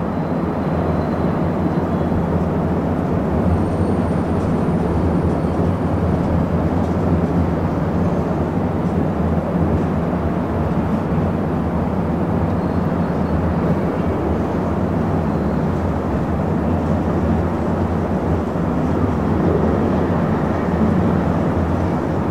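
Busy city traffic ambience: a steady, dense wash of distant traffic rumble with a low hum, and a faint high-pitched brake squeal about four seconds in.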